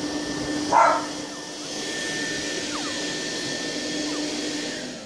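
A motorised household appliance runs steadily with a whooshing noise and a constant hum, fading out at the very end. Over it there is a short, louder squeal about a second in and a few faint high squeaks from newborn puppies.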